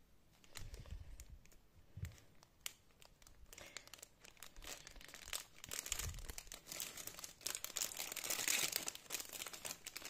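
Clear plastic bags crinkling as they are handled and shuffled through in a basket, sparse at first and getting busier and louder in the second half, with a few soft thuds.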